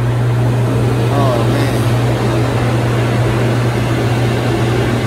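Hydromassage bed running: a loud, steady low hum from its pump and water jets under the mat.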